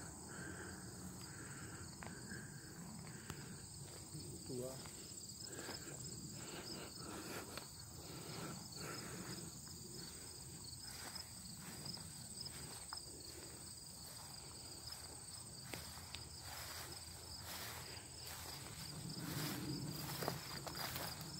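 Steady chorus of insects, a continuous high shrill trill, with occasional soft rustles and footsteps in the undergrowth.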